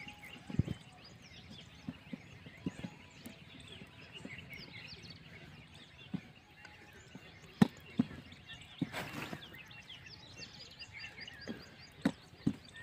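Scattered wooden knocks and taps from rolling out rotis with a rolling pin on a board, a few at a time, with small birds chirping throughout.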